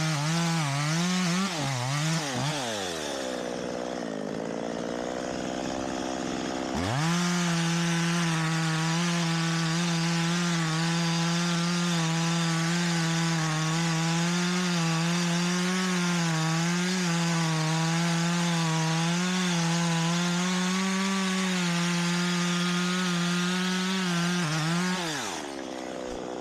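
Two-stroke chainsaw cutting wood at full throttle. It eases to idle about three seconds in, opens up again about seven seconds in for a long steady cut, and drops back to idle near the end.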